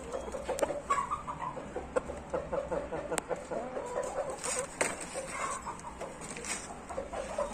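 Chickens clucking in quick, repeated short calls, with a few sharp clicks in between.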